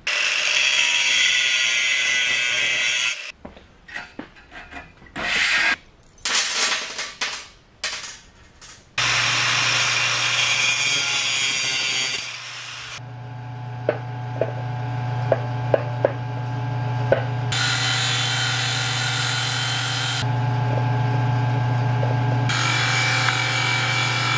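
Small angle grinder grinding steel in several loud spells. Between the spells its motor keeps running with a steady hum, with a few sharp ticks.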